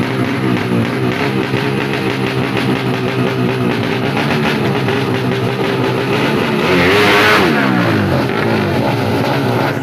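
Tuned 200cc four-stroke underbone drag bike engines running and revving with a wavering pitch. About seven seconds in, one engine swells louder and then drops in pitch.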